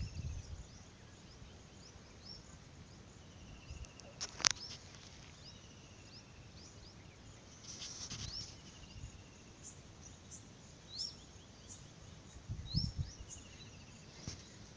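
Quiet open-country ambience with short rising bird chirps every second or two, a few faint buzzy trills, a sharp click about four and a half seconds in, and a couple of low bumps.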